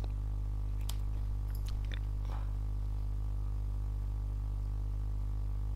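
Steady low hum with a row of evenly spaced overtones, as of mains hum picked up in the recording, with a few faint clicks in the first two and a half seconds.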